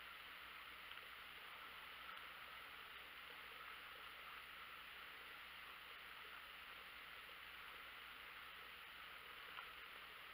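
Near silence: a steady faint hiss.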